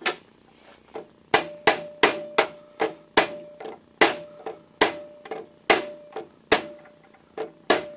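A hammer taps repeatedly on locking pliers clamped onto a Woodruff key in a lathe spindle, driving the key out of its slot. There are about eighteen sharp metal-on-metal strikes, two to three a second with short pauses, and each leaves a brief ring.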